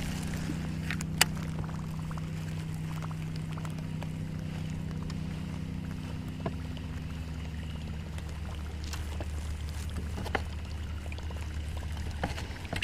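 A boat motor runs with a steady low hum, its tone shifting lower about eight seconds in. There is a short sharp click about a second in.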